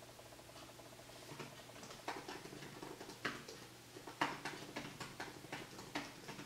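Typing on a MacBook laptop keyboard: a run of quick, uneven key clicks starting about a second in, with a few louder clacks among them.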